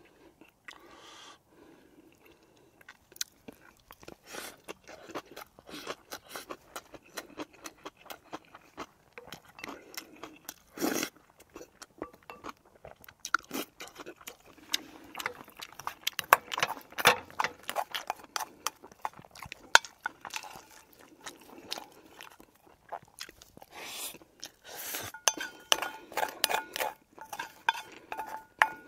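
Close-miked eating: irregular chewing and crunching of food, with a spoon and chopsticks clicking against the bowls.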